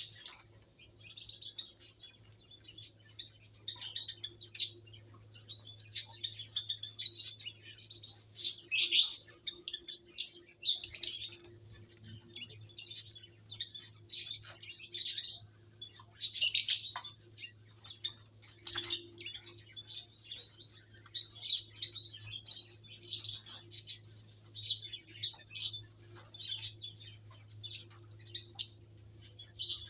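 Small aviary birds chirping: many short, high chirps at an uneven pace, some in quick runs, over a faint steady low hum.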